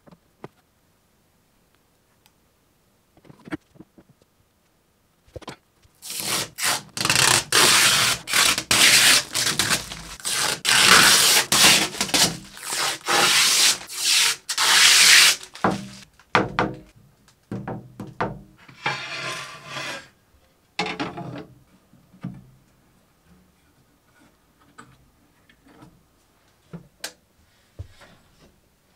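Protective film being peeled off a clear acrylic 3D-printer enclosure door panel: a long, loud crackling tear of about ten seconds, then a few shorter tears and light taps.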